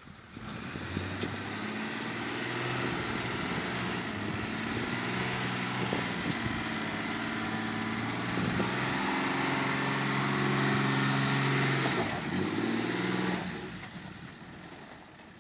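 Heavy-duty pickup truck's engine working hard as it pulls a gooseneck trailer loaded with round hay bales, the engine pitch rising and dropping back several times, then fading away near the end.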